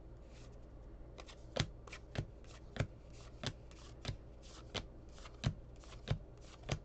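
A stack of Topps Heritage cardboard baseball trading cards being thumbed through by hand, one card at a time. Each card slides off the pile with a light snap, about one every two-thirds of a second, with soft sliding between.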